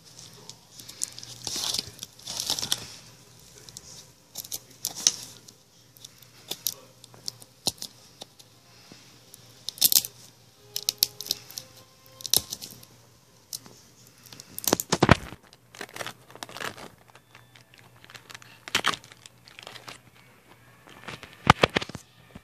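Small Bonafont Kids plastic juice bottles being handled, with crinkling and tearing of plastic and paper wrapping. There are irregular sharp clicks and crackles, with louder knocks about halfway through and near the end.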